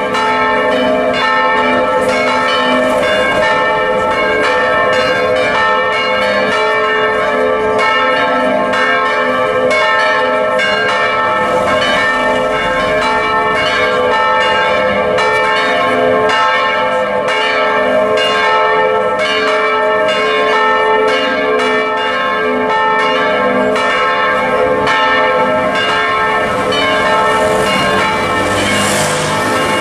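Several church bells, swung by electric motors through wheels and belts, ringing together in a continuous peal, their rapid strokes overlapping into a dense, steady ringing.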